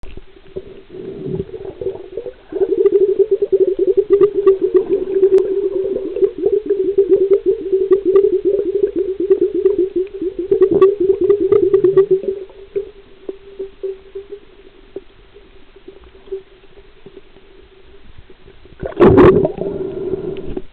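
Steady underwater hum with a fast, irregular rattle over it, as picked up by a submerged camera. It is loud for about ten seconds, then fades to a faint drone, and a short loud bubbling burst comes near the end.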